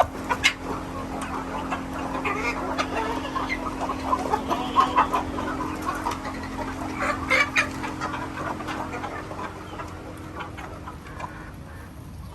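Chickens clucking, many short scattered calls, over a steady low hum that fades near the end.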